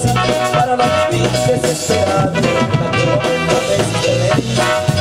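Live band music through PA speakers: electronic keyboards play a melody over electric bass and a drum beat.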